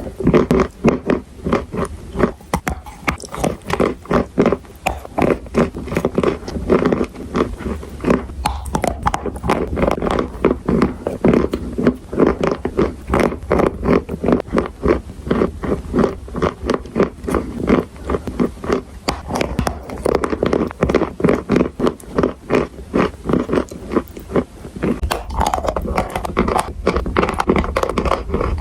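Close-miked crunching of a person biting and chewing edible chalk and clay: a dense run of sharp, irregular crunches, several a second, with no let-up.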